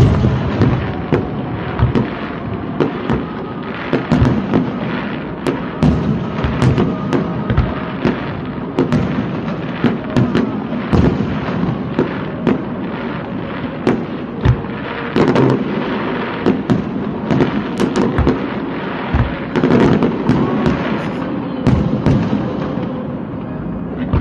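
Aerial fireworks going off in quick succession: a continuous crackle with frequent sharp bangs, a few every second.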